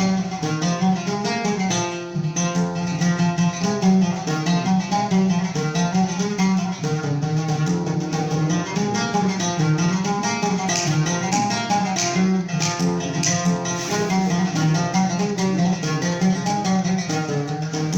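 Instrumental music led by a plucked string instrument playing a busy melodic passage over a steady low accompaniment, with no singing.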